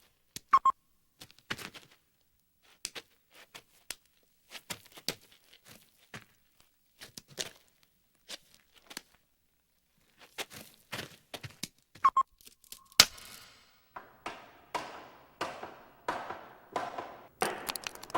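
Animated-film sound effects with no dialogue: scattered light taps, clicks and knocks with two short chirps, then about two-thirds of the way in a loud sharp hit followed by a quick run of rattling hits, each fading fast.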